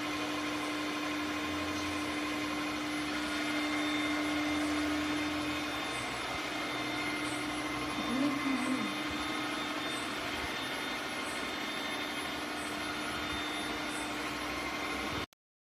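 ECOVACS T10 robot vacuum running steadily: suction fan and brushes make an even whirring hiss with a constant hum and whine, and a faint regular ticking about every 0.7 s.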